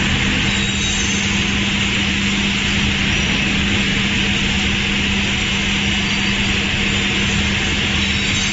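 Woodworking machinery running steadily, a constant hum with a hiss over it and no breaks or cuts starting or stopping.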